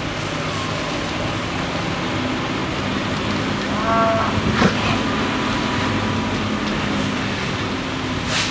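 A fire engine's motor running with a steady drone, with a brief tone about four seconds in.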